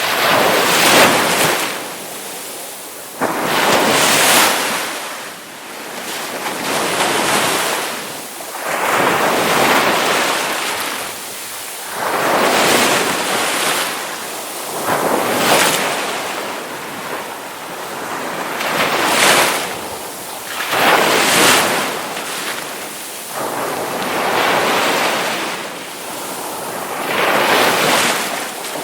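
Ocean surf: waves breaking one after another, a rush of noise that swells and falls back about every three seconds.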